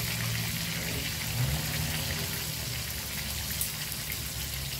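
Hot oil sizzling and crackling steadily around pieces of sultan fish deep-frying in a wok, the fish near the end of frying.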